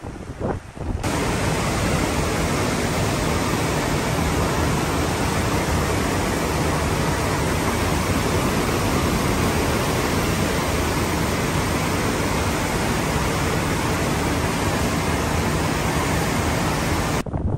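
Churning wake of a cruise ship behind the stern: a steady, even rush of water noise that starts abruptly about a second in and cuts off just before the end.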